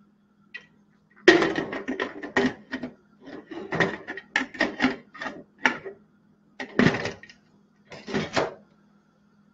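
Stainless steel pressure-cooker lid being set onto the pot and shifted to seat it: a string of metallic clinks, knocks and scrapes, with a pause at about six seconds and a last few clinks near the end.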